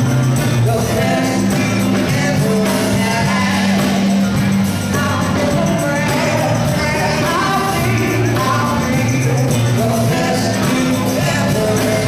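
Live band playing loud with singing, over electric guitar, keyboards, bass and drums.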